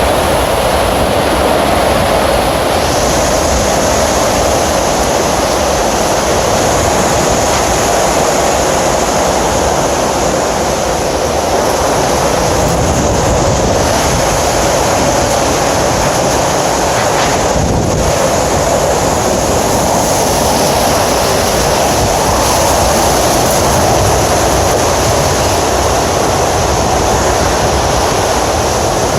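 Category 4–5 hurricane wind blowing steadily for the whole stretch, a loud, continuous rushing roar with no let-up.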